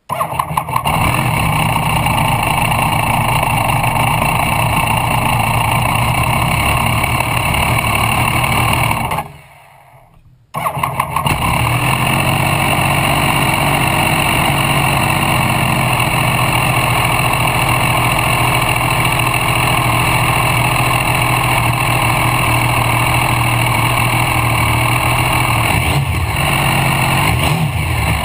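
Triumph Daytona T595's three-cylinder engine, breathing through a short 25 cm silencer, starts up abruptly and runs loudly. It dies away about nine seconds in, is started again a second and a half later and runs on steadily, with a couple of brief revs near the end.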